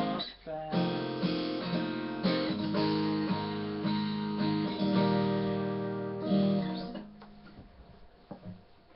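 Acoustic guitar strumming chords. The last chord rings and fades out about seven seconds in, followed by a few faint clicks.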